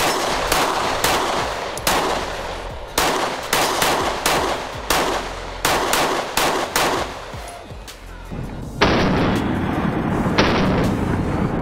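Springfield Armory XDM Elite 3.8 semi-automatic pistol fired in quick strings of shots, with short pauses between strings.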